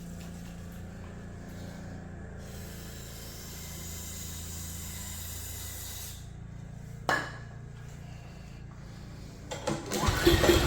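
A steady low hum with a hiss of aerosol spray, likely starting fluid being given to the Earthquake chipper shredder's small gasoline engine, whose carburettor is not feeding it. A single sharp click comes about seven seconds in. Near the end the engine fires and comes up loud.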